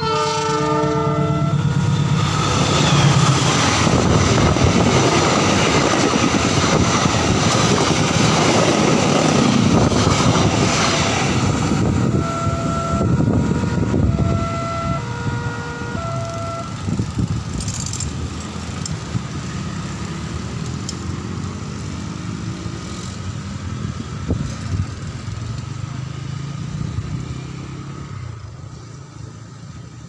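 A diesel-locomotive-hauled train passes through a level crossing with a loud rush of wheel and rail noise and clickety-clack. At the start, the crossing's electronic alarm sounds its alternating two-note warning, and the alarm's notes come back faintly about 12 to 17 seconds in. After that the noise dies away into motorbike engines as traffic crosses.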